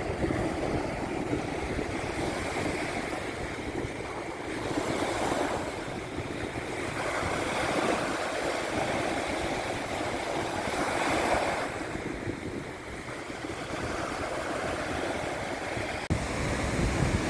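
Gulf of Mexico surf washing onto the beach, swelling and easing every few seconds, with wind rumbling on the microphone.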